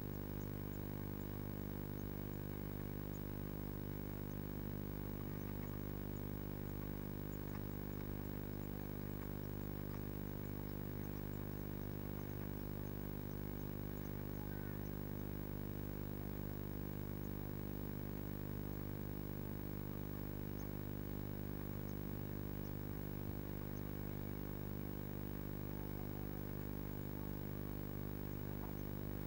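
Steady electrical hum, a stack of even low tones that does not change, with faint scattered ticks above it.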